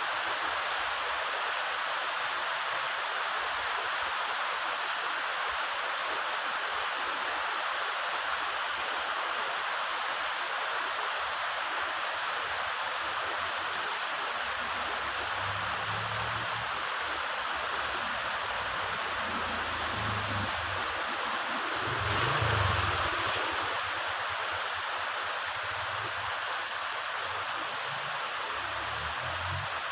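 Heavy rain falling steadily, with low rolling thunder coming in about halfway through and swelling briefly in the last third.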